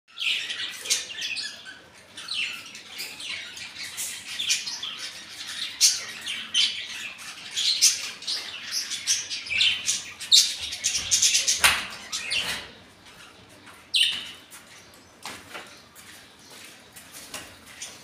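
A flock of caged budgerigars and ringneck parakeets chirping and chattering, many short high calls overlapping. The calls are busiest in the first twelve seconds or so, with one loud call near fourteen seconds, then thin out.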